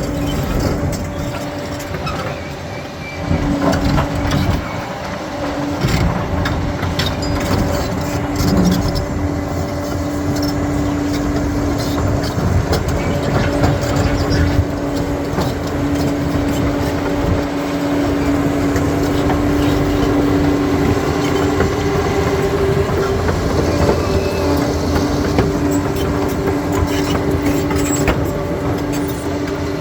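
Bulldozer at work, its diesel engine running at a steady pitch under a deep rumble, with continuous clanking and rattling from its steel crawler tracks and the rock it is moving.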